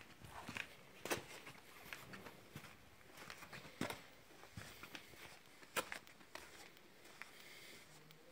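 Faint footsteps on sand and grit, uneven scuffs with a few sharper clicks.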